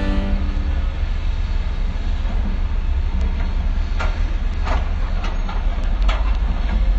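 Heavy diesel machinery running with a steady low rumble, with a few sharp metallic clicks or knocks in the second half.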